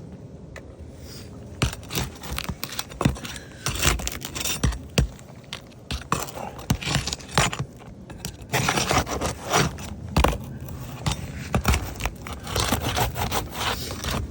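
Steel flat bar scraping and clicking against asphalt shingles as it is worked under them to pry out roofing nails. The scrapes and clicks come in irregular bursts, starting about a second and a half in.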